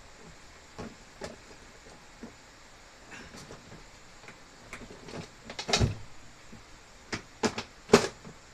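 Scattered clicks and knocks of tools and supplies being rummaged through and handled, sparse at first and busier in the second half, with the loudest knocks about two-thirds of the way through and near the end.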